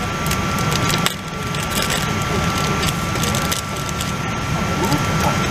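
Steady cabin noise of a Boeing 777-200ER, a low rumble with a faint steady two-note whine, overlaid with crackling clicks; the noise dips briefly about a second in.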